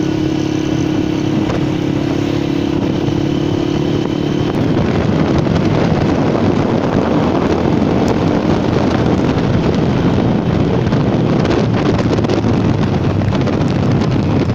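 Zipco KPR 200 motorcycle being ridden at low speed, its engine running steadily under road and wind noise. About four seconds in, the engine's steady note fades into a louder rushing noise.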